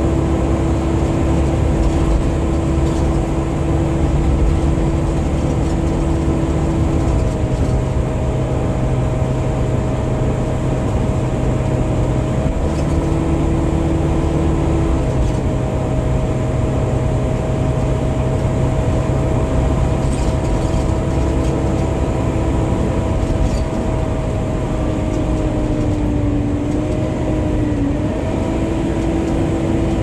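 Volvo B9TL double-decker bus on the move, heard from the upper deck: the steady drone of its six-cylinder diesel with a whine on top. The whine steps slightly in pitch a few times and wavers near the end.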